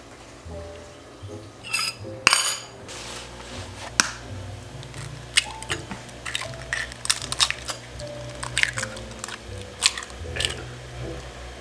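Background music with a steady low bass line, over kitchen clatter: repeated knocks and clinks of dishes and utensils being handled, the loudest just over two seconds in.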